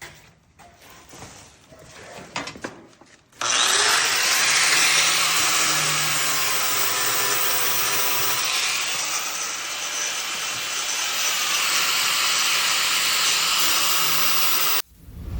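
A few faint clicks and knocks, then a grinder with a sanding wheel runs against a steel bolt for about eleven seconds, its pitch wavering as the load changes, and cuts off suddenly. It is grinding down the shank of a bolt whose head was cut off, so that it fits inside a hex nut.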